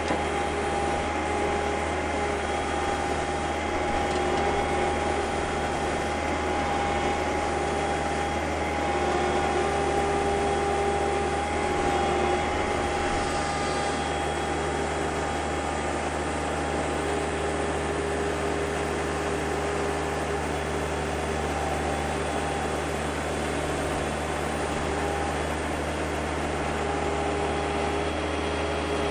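Skid steer loader's engine running steadily under a tree-pulling attachment, with a steady whine over the engine hum; the level swells a little about ten seconds in.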